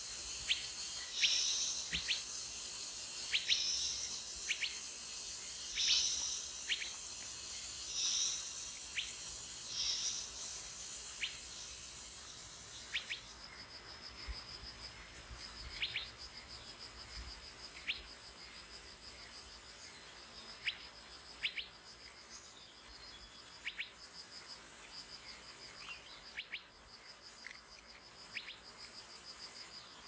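Forest insects buzzing in high, rhythmic bursts about once a second; after about twelve seconds these give way to a steady, fast-pulsing insect trill. Short, high bird chirps come every second or two throughout.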